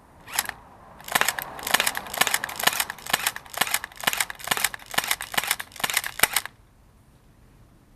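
Tokyo Marui PC356 electric blowback airsoft pistol firing on semi-auto from non-rechargeable batteries. One shot, then a quick string of about twenty shots at roughly four a second that stops suddenly; each shot is a sharp mechanical clack.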